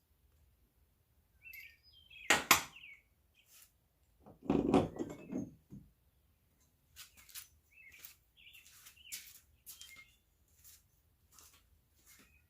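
Metal clanks and clinks from handling the coilover and its hardware as it is fitted into the rear suspension, with one sharp clank a couple of seconds in, a heavier knock about halfway, then a run of light ticks. Birds chirp in the background.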